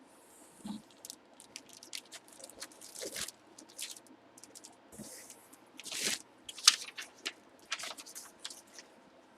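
Trading cards and their plastic packaging being handled: irregular crinkling and sharp clicks, the loudest click about two thirds of the way through.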